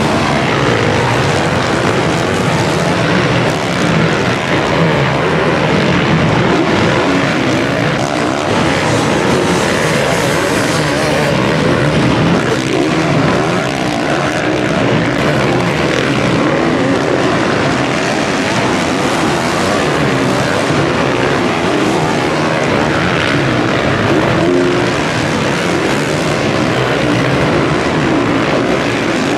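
Several motocross motorcycle engines running together on the track, heard as a continuous loud drone.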